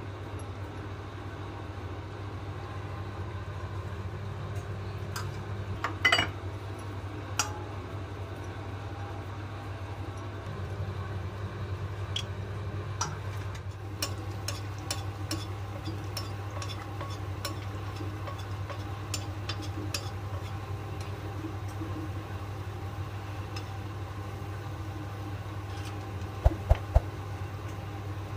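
Semolina-almond dough cookies deep-frying in oil in a kadai: from about ten seconds in, the oil crackles and pops in scattered sharp clicks over a steady low hum. A louder clatter comes about six seconds in, and three low knocks come near the end.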